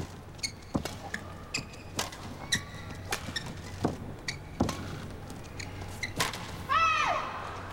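Badminton rally: racket strings striking the shuttlecock, a string of sharp cracks about every half second to a second, with a short pitched squeal near the end.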